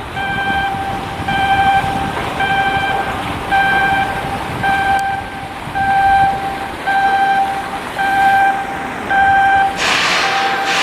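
Electronic warning beeper sounding in a steady repeating pattern, about one half-second beep per second, over continuous machinery noise; a louder rushing noise comes in near the end.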